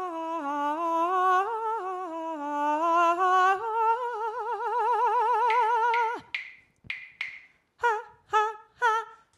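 A woman's voice humming a wordless melody: long gliding notes with a wavering vibrato, then a few breathy puffs and a run of short, clipped notes near the end.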